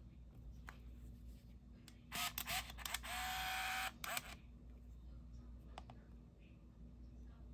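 Olympus mju-II compact film camera's built-in motor whirring: a few short whirs with a rising whine, then about a second of steady whir, then one last short whir. A couple of faint clicks come before and after.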